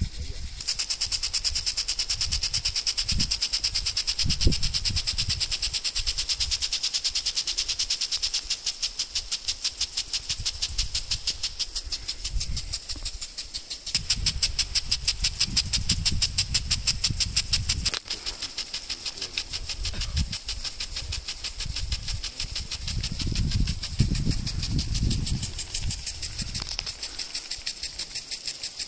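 Impact sprinklers running: the rapid, regular ticking of the swinging impact arms over the hiss of water spray. It grows louder about halfway through, when one sprinkler head is close, and there is low wind noise at times.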